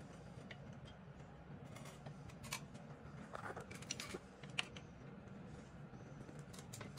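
Faint, scattered metal clicks and taps of a small wrench loosening the oil drain bolt on a 110cc engine, over a low steady hum.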